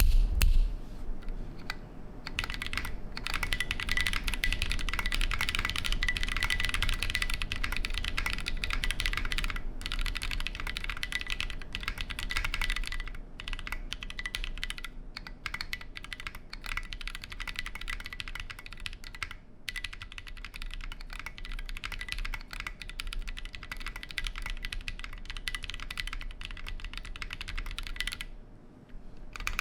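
Fast, continuous typing on a custom 60% mechanical keyboard: lubed Drop Holy Panda tactile switches on a CNC plate in a KBDFans 5° aluminum case, with GMK Skiidata keycaps. The typing pauses briefly a couple of times and stops for about a second near the end.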